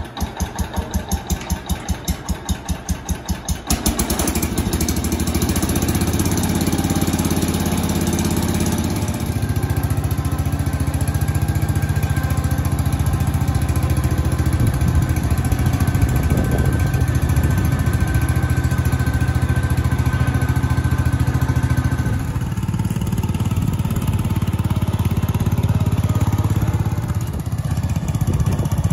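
1971 Cub Cadet 147's single-cylinder Kohler engine cold-started: the starter cranks it in quick even pulses for about four seconds, then it catches and runs steadily, with a couple of slight dips in speed near the end.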